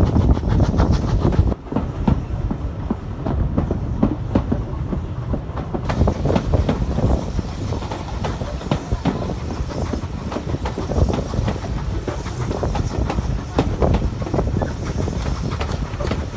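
Passenger carriages of a steam-hauled heritage train running along the line, with a steady low rumble and irregular clicking of the wheels over the rails, heard at an open carriage window.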